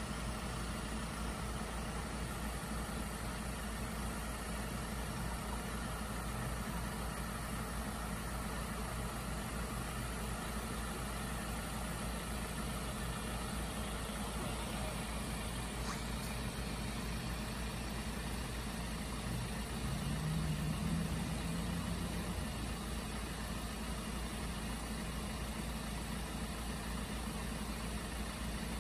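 A parked fire-service van's engine idling steadily, a low hum that swells briefly about twenty seconds in.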